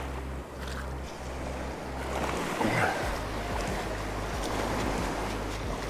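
Small surf washing in over the sand and draining back, with wind rumbling on the microphone.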